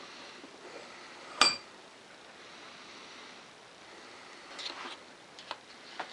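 A small metal tool or part clinks once against a hard surface about a second and a half in, with a short metallic ring. Faint handling clicks and rustles follow near the end.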